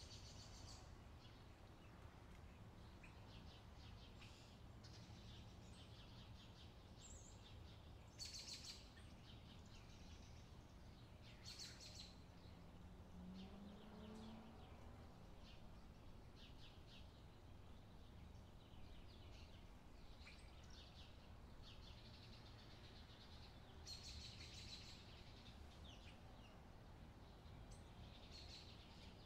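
Near silence: a faint steady low hum, with a few short clusters of faint high scratchy chirps.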